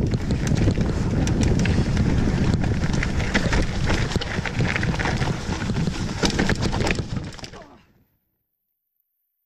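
Mountain bike riding fast down a dirt forest trail: tyres rumbling over the ground, with the chain and frame clattering over bumps and wind buffeting the microphone. The sound fades out about eight seconds in and gives way to dead silence.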